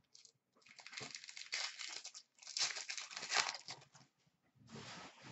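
Hockey card pack wrapper being torn open and crinkled in the hands, in three rustling stretches of a second or so each.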